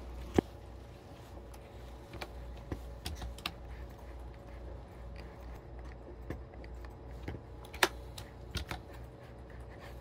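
Irregular clicks of a computer keyboard and mouse at a desk, a few at a time with pauses between, over a low steady hum.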